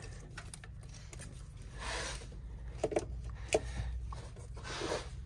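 Quiet close-up handling noises from hand work on a wiring splice: soft rubbing and scraping, with a couple of sharp clicks about three seconds in.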